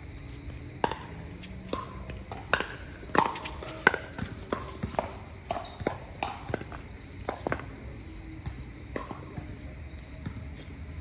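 Pickleball paddles hitting the hollow plastic ball and the ball bouncing on the hard court during a rally: sharp pops at irregular intervals, the loudest two about three and four seconds in.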